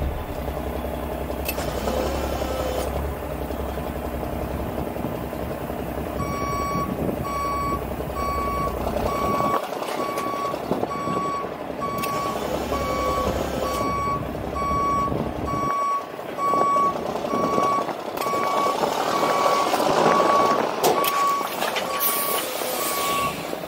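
A vehicle backup alarm beeping at an even pace, about one and a half beeps a second, starting about six seconds in, over the low running of a heavy truck's engine.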